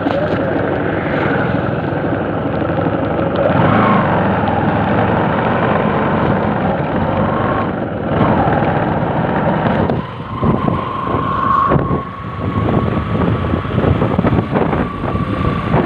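Bajaj Discover motorcycle engine running while riding along a road, heard from the rider's seat. A thin steady whine comes in over the last five seconds.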